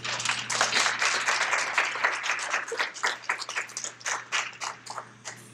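Audience applauding: many hands clapping together, thinning to scattered claps after about three seconds and dying out near the end.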